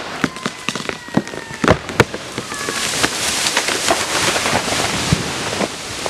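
A large, lightning-rotted tree's hinge wood cracking in a string of sharp snaps as the trunk starts to go over, then a rising rush of branches and leaves sweeping through the air as it falls.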